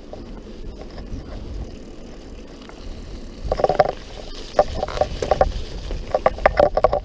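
Mountain bike being ridden, with a steady rumble of wind on the microphone and tyre noise. From about three and a half seconds in come bursts of clicking and rattling from the bike as it rolls onto a rough dirt track.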